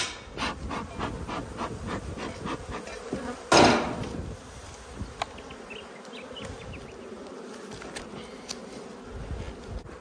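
Honeybees buzzing steadily over an open hive box, with a run of light knocks and clicks from wooden hive parts being handled in the first few seconds and one loud, brief handling noise about three and a half seconds in.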